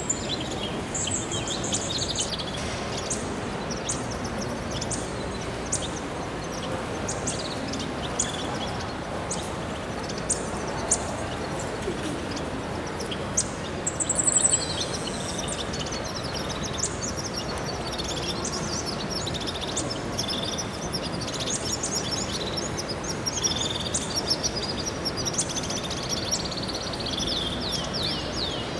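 Many small aviary birds chirping and twittering all through, with quick high notes and brief trills, over a steady background rush.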